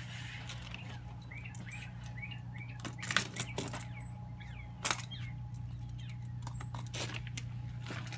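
Black building paper being cut and peeled back off a wall's wood sheathing: a few sharp rips and crackles, the loudest near the middle, over a steady low hum. Birds chirp briefly a couple of seconds in.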